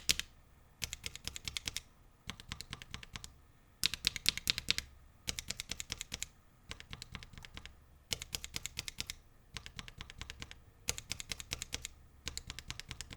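Gateron Ink mechanical keyboard switches, some lubed and some unlubed, pressed rapidly in short bursts. Each burst is a quick run of about ten clacks, repeated about every second and a half.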